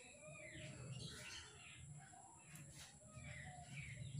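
Faint birds chirping in scattered short calls, over a low steady rumble and a thin steady high tone.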